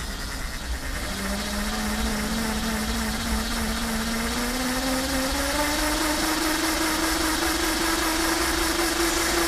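Lightning Rods Big Block mid-drive e-bike motor spinning unloaded. Its whine starts about a second in and rises smoothly in pitch as the power is raised, then holds steady.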